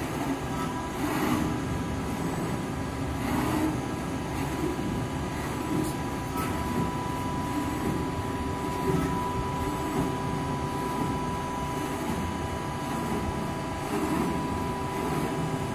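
LVD Strippit V20-1525 CNC turret punch press running through its program: a steady machine hum with a constant high whine, swelling briefly a few times.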